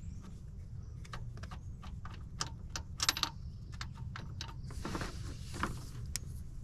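Irregular small metallic clicks and clinks of hand tools and starter bolts being handled under the hood, with a cluster of clicks about three seconds in and a short rustle about five seconds in.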